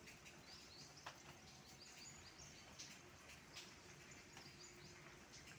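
Faint rain dripping on leaves, with a few distinct sharp drops, the loudest about a second in and near the middle, over steady high chirping of small birds.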